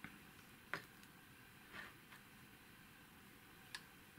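Near silence with a few small handling noises from the opened metal avionics chassis held in the hands: a sharp click about three-quarters of a second in, a soft rustle, and another click near the end.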